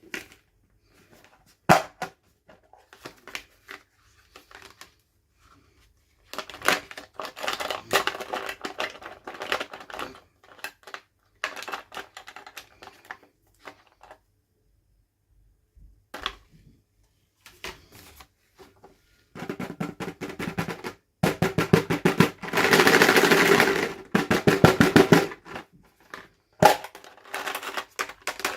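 Toy packaging being handled and opened: plastic crinkling and rustling with scattered clicks and taps, broken by short pauses, and a dense, fast rattling crackle for about four seconds in the second half.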